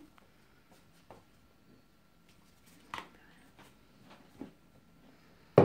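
A few faint clicks and taps of hands handling a plastic syringe, the clearest about three seconds in as it is set down on a plastic board. A louder short sound comes right at the end.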